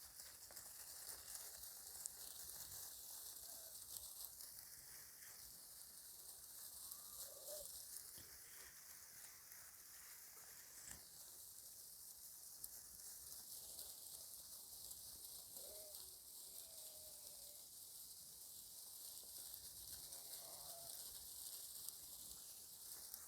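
Very quiet background hiss with a few faint, distant sheep bleats scattered through it.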